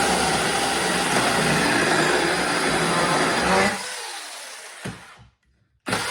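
Samyoung 26-volt cordless mini chainsaw cutting through a 2x4: the chain rasps through the lumber over the electric motor's whine, then stops about three and a half seconds in and winds down. A second short run near the end fades away.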